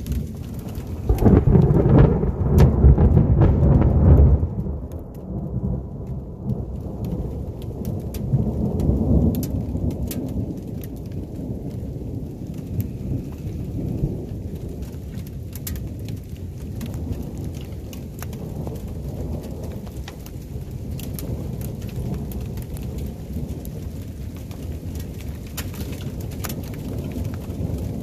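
Thunderstorm: a loud low rumble of thunder about a second in that lasts some three seconds, a weaker roll of thunder a few seconds later, over steady rain with scattered sharp ticks of drops striking.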